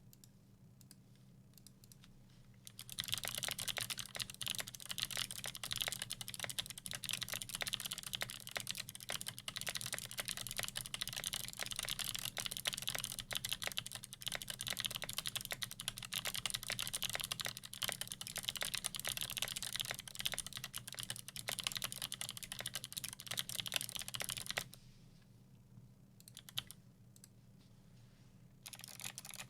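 Fast typing on a custom Melody96 mechanical keyboard with lubed Kailh Speed Bronze switches, an aluminium plate and PBT keycaps: a quick, even stream of key clicks starting about three seconds in. It stops for a few seconds with a brief flurry of keystrokes, then resumes near the end, over a faint low hum.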